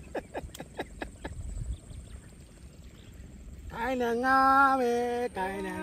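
A song with a singing voice holding long notes comes in loudly about two-thirds of the way through. Before it comes a quick run of short chirps, each falling in pitch, several a second, lasting about a second and a half.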